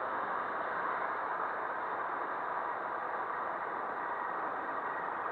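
Steady running noise of a Hero Hunk's 150 cc single-cylinder motorcycle engine, ridden slowly around cones, heard as an even hiss-like drone with no changes.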